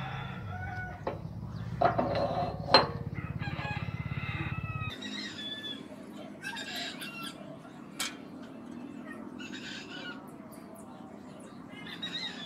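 Roosters crowing, about six crows one after another, over a low hum that stops about five seconds in. A few sharp clicks cut through, the loudest near three seconds in.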